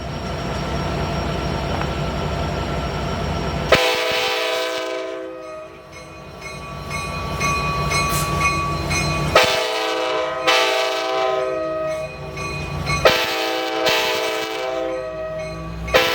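Amtrak F59PHI diesel locomotive passing with a low rumble, then its multi-chime air horn sounding a chord in long blasts that start sharply about four, nine and thirteen seconds in.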